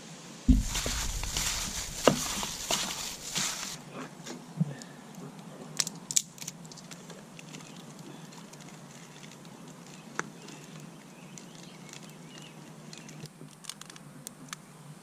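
Food cooking in hot oil: a burst of sizzling starts about half a second in and lasts about three seconds, followed by scattered pops and crackles.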